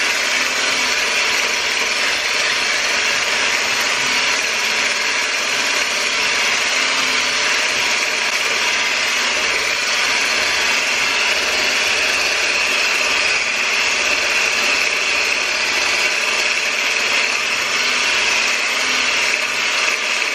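Handheld stick blender with a whisk attachment running steadily at its lower speed, whisking thickened cheesecake filling in a pot.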